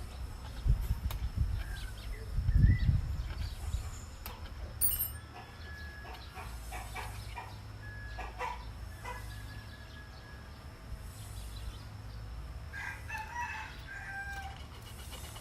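A rooster crowing, with short pitched calls a couple of times. There are low knocks and handling noises in the first four seconds.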